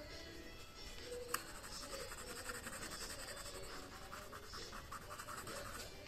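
White colored pencil hatching on tempera-coated card: faint, quick, evenly repeated scratching strokes, after a single light tap just over a second in.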